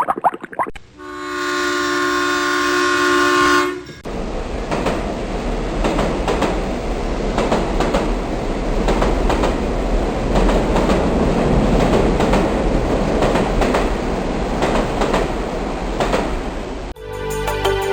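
Short bubbling of water, then a train horn sounds one held chord of several steady tones for about three seconds, followed by a train running past with a steady rumble and wheels clacking over the rail joints. Music cuts in near the end.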